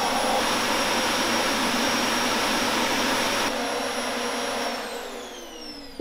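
Upright vacuum cleaner running with a steady rush of air and a high motor whine. It is switched off near the end, and the whine falls in pitch as the motor spins down.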